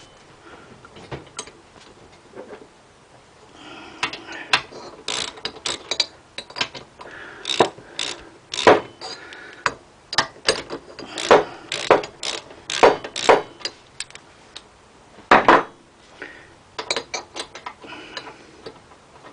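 Ratchet wrench clicking in irregular bursts as 12 mm cylinder-head bolts are turned out of a small engine, with a few louder knocks of metal tools.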